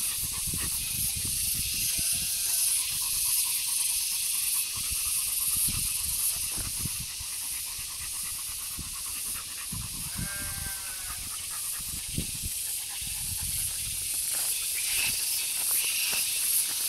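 A leashed dog panting and rustling about in dirt and weeds over a steady high hiss, with irregular low thuds. There are two short high-pitched calls, about two seconds in and again around ten seconds in.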